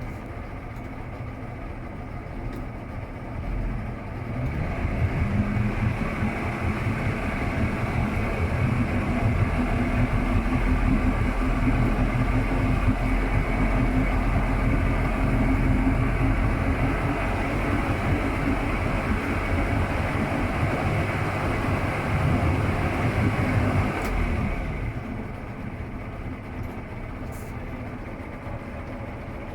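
200-horsepower two-stroke outboard motor running at idle, revved up about four seconds in and held at higher revs for about twenty seconds, then dropping back to idle near the end.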